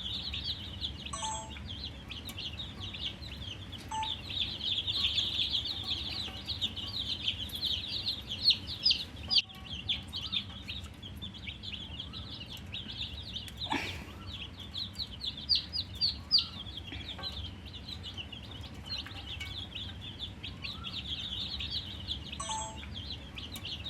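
A brood of baby chicks peeping continuously, with many short high-pitched chirps overlapping. A single short knock sounds about halfway through.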